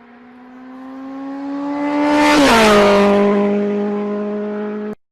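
A motor vehicle passing by: a steady engine note grows louder, drops in pitch as it goes past about two and a half seconds in, then fades and cuts off abruptly.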